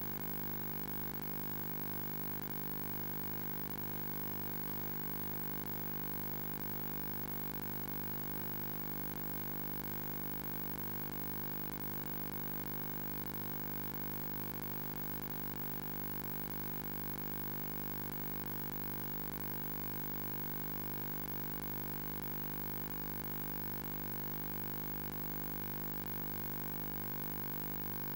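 Steady, unchanging electronic hum with many fixed tones layered over one another, from a faulty audio track rather than any sound in the scene.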